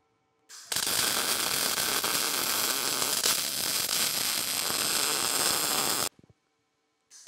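MIG welding arc running on steel: a steady noise that starts about half a second in and cuts off abruptly about six seconds in. After a short gap, another weld starts near the end.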